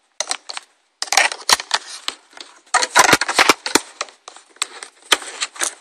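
Handling noise: a rapid string of sharp clicks, knocks and scraping rustles as a fog lamp mounting bracket is grabbed and fitted by hand behind the bumper, close to the microphone. It is sparse at first and becomes a dense clatter about a second in.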